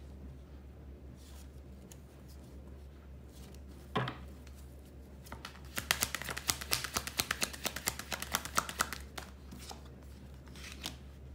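Tarot cards being shuffled: a single tap about four seconds in, then a quick run of papery card clicks lasting about three seconds.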